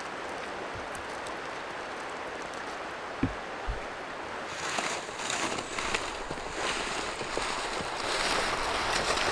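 A small snowy creek running with a steady rushing hiss, with two dull thumps a little after three seconds in. From about halfway the noise turns louder and rougher, with irregular crackling.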